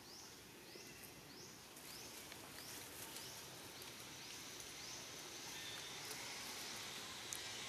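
Forest ambience: a high chirping call that rises in pitch each time, repeating roughly every half second, over a steady high insect hiss that grows a little louder toward the end.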